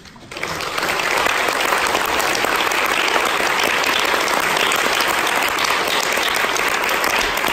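Audience applause breaking out from silence and building within about a second to steady clapping from many hands.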